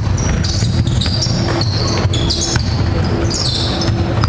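Basketball bouncing on the court as it is dribbled, with sneakers squeaking in short high streaks over the low, steady rumble of a large sports hall.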